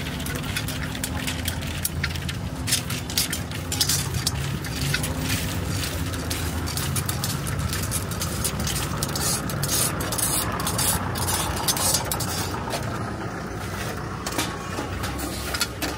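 Metal clinking and scraping as a rod knocks freshly popped corn out of the mouth of a traditional cast-iron popcorn cannon, with rapid irregular ticks and clicks as the kernels drop into a wire sieve, over a steady low hum.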